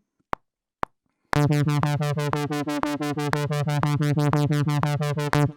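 Logic's Retro Synth software synthesizer playing a buzzy tone that an LFO chops into a rapid pulse of about seven beats a second, a basic sci-fi scanner sound effect. It starts about a second in after two short clicks and cuts off suddenly near the end.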